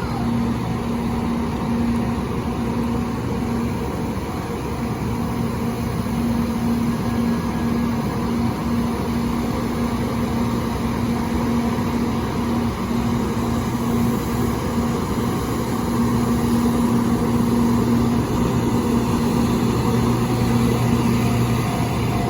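A vehicle engine running steadily with a low hum, a little louder from about sixteen seconds in.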